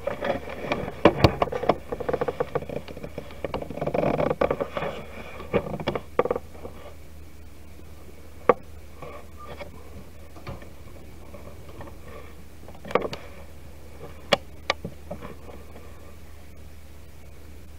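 Handling noise as a camera is picked up, moved and set in place: rustling, bumps and knocks for about the first six seconds, then a few separate sharp knocks and clicks, over a steady low hum.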